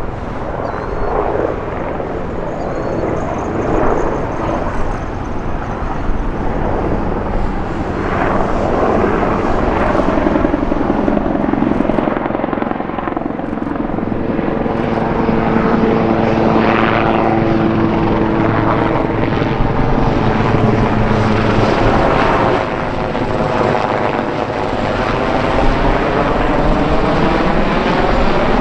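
Bell AH-1Z Viper attack helicopter flying past low, its twin turboshaft engines whining steadily over the beat of the four-blade main rotor. Near the end the sound sweeps in pitch as the helicopter passes.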